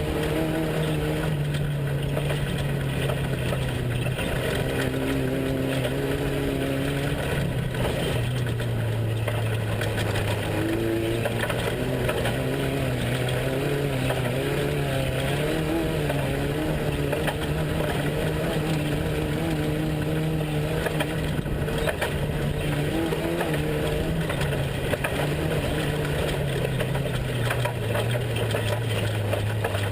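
Off-road race truck's engine running at a steady, low speed under a constant rush of noise, its pitch sliding down near the end.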